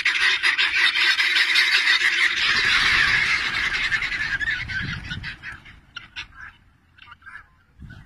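A large flock of white birds calling all at once in a dense, harsh chatter. After about five seconds it thins out to a few scattered calls.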